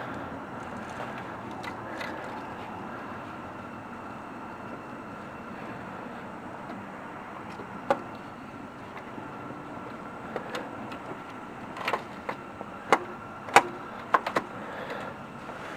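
Sharp metallic knocks and clunks of a loosened starter motor being manoeuvred out from under the engine, one about halfway through and a quick cluster near the end, over a steady background hum.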